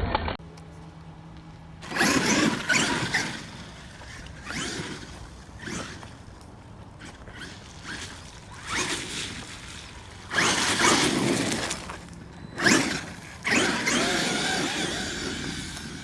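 Traxxas X-Maxx 8S electric RC monster truck driven in repeated bursts of throttle through wet snow, its tires churning and throwing snow; the loudest bursts come near the start and in the second half.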